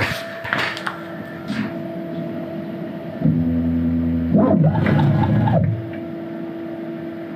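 CNC router's stepper motors whining steadily as the machine runs an automatic touch-probing cycle, moving the probe pin toward the edge of the workpiece. About three seconds in, the whine gets louder and lower and wavers for a faster move, then settles back to the quieter steady tone. A few handling clicks come near the start.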